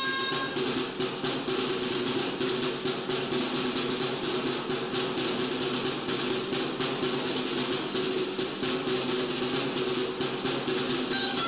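Two tabals (traditional Valencian side drums) playing a fast drum interlude with rolls, without the dolçaines. The dolçaina shawms break off just after the start and come back in near the end.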